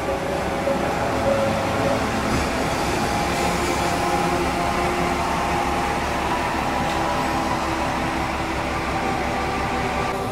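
A diesel railcar at the station, its engine running steadily with a droning hum.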